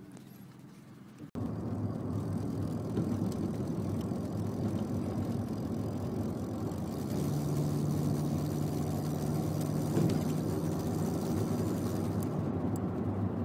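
Vauxhall Vectra B's 2.5-litre X25XE V6 engine running steadily, heard close up, with the blowing noise its owner is trying to diagnose. The sound jumps suddenly louder about a second in, and a steady hum with more hiss comes in about halfway through.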